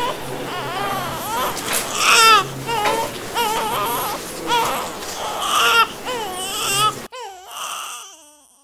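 Newborn baby boy crying just after birth: a string of short, wavering cries, one after another. About seven seconds in the background hum cuts out abruptly and the last cry fades away.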